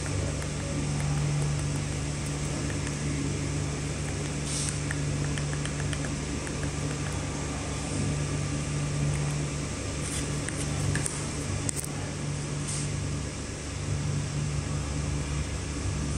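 Steady electric fan hum with a low tone in it, like a projector's or air conditioner's cooling fan running, with a few faint clicks now and then.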